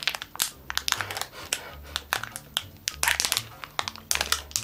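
Plastic candy packet crinkling and crackling in irregular bursts as it is twisted and pulled open by hand.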